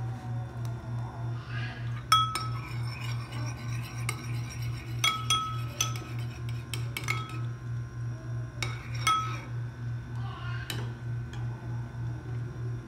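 Dishes and cutlery clinking: several sharp clinks that ring briefly, the loudest about two seconds in. Under them runs a low hum that pulses a little more than twice a second.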